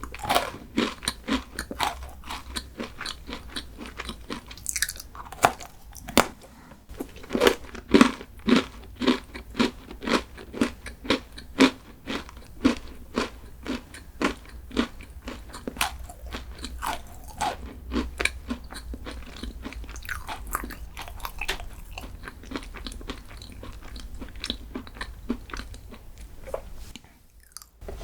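Crunchy food being bitten and chewed close to the microphone: a steady run of crisp crunches at about two a second, loudest about a third of the way in.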